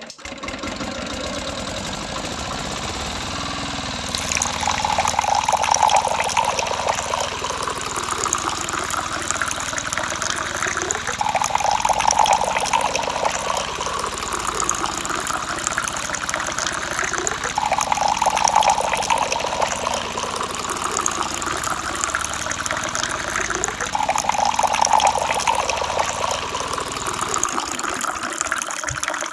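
Water gushing and splashing from a miniature DIY tractor's motor-driven water pump as it sprays water drawn from a small well. The sound is steady, with a louder swell about every six seconds.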